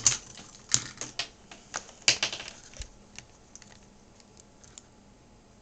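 Hard plastic cable connectors clicking and tapping as they are handled: several sharp clicks in the first two seconds, then only a few faint ones.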